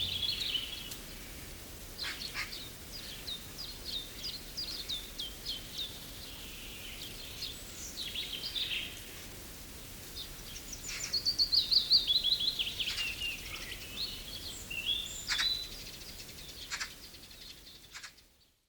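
Small songbirds chirping and singing, with several rapid runs of short repeated high notes over a faint steady background, fading out near the end.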